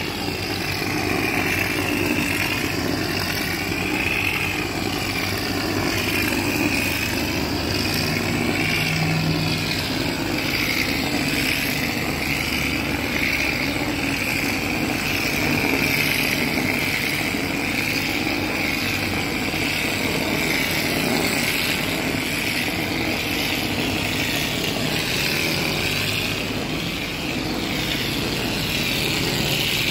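Hose-fed mortar spray gun blasting wet plaster onto a brick wall with compressed air: a steady, unbroken rushing hiss over a low mechanical drone.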